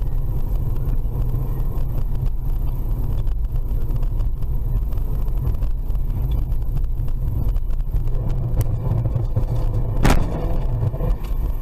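A car driving, with a steady low rumble of engine and road noise and one sharp knock about ten seconds in.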